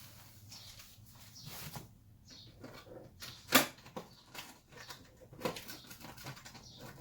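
Handling noises from working on a pistol by hand: light clicks, taps and rustles, with one sharper click about three and a half seconds in.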